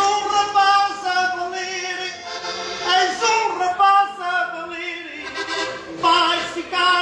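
A man singing a verse of a Portuguese desgarrada, an improvised sung duel, with some long held notes.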